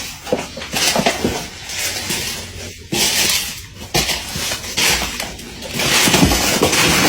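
Irregular clattering and rustling of objects being handled and moved, in uneven bursts with short pauses between them.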